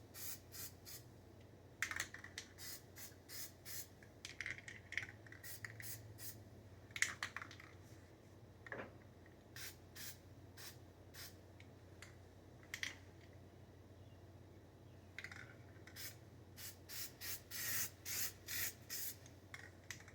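Aerosol spray-paint can hissing in many short bursts, coming in clusters, as paint is sprayed onto a Cub Cadet mower deck.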